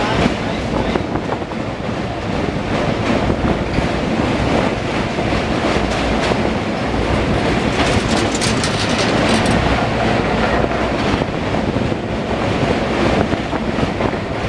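Moving passenger train heard from an open coach door: a steady rumble and rattle of the wheels running on the rails, with clickety-clack. A sharper, louder clatter comes about eight seconds in, lasting a second or two.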